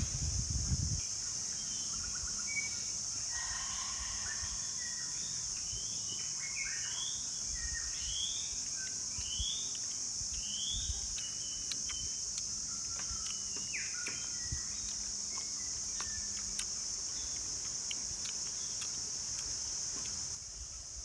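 A steady high-pitched insect drone, with birds chirping over it: a series of short rising calls in the middle. The drone cuts off suddenly near the end.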